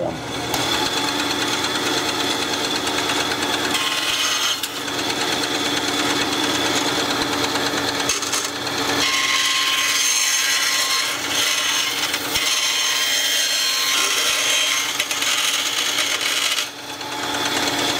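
Skil benchtop band saw running and cutting small scraps of model girder: a steady motor and blade whine over the hiss of the cut, with a brief drop in level near the end.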